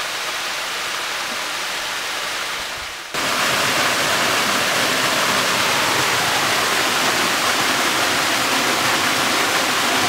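Waterfall water rushing steadily: a small cascade spilling over rock into a pool, cutting about three seconds in to a taller free-falling waterfall that is louder.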